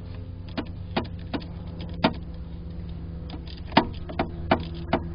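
Sharp irregular metal clicks of a wrench working the negative battery terminal loose, about eight of them, over a steady low hum.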